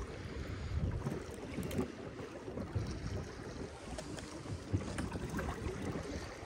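Strong wind rushing over the microphone, with choppy water lapping against an inflatable boat.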